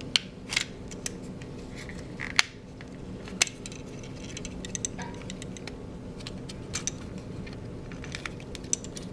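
Scattered sharp clicks and light clatter of small hard plastic parts as a Contour ROAM action camera is handled and its plastic end cover is peeled off, over a faint steady hum.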